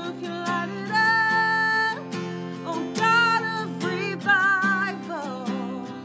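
A woman singing a worship song to her own strummed Breedlove acoustic guitar, holding long notes, some with vibrato.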